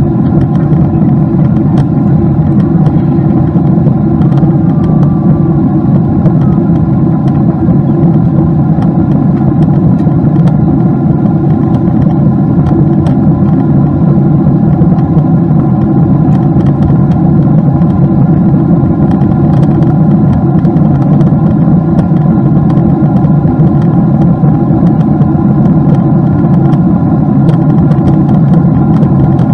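Steady drone of a Boeing 777-200's twin turbofan engines heard inside the passenger cabin in flight: a deep, even rumble with faint steady whining tones above it.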